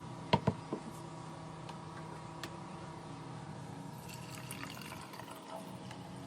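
A small aquarium water pump switches on after a few sharp clicks and runs with a steady hum while water trickles and splashes.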